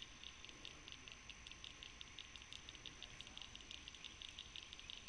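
Faint, rapid high-pitched clicking from calling animals, many clicks a second and uneven in strength, over a thin steady high whine.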